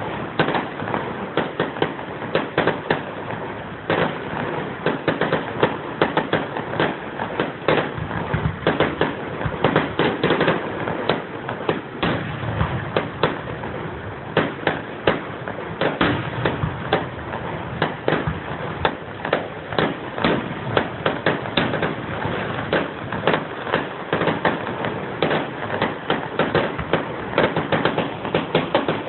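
Fireworks going off in a dense, unbroken run of sharp cracks and pops, several a second.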